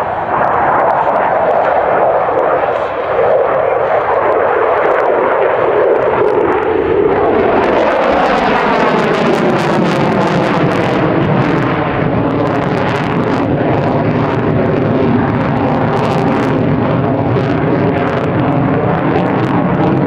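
Loud jet noise from an F/A-18F Super Hornet's twin turbofan engines as it passes: the noise falls in pitch over the first eight seconds or so. After that it holds steady with a wavering, phasing sweep through it.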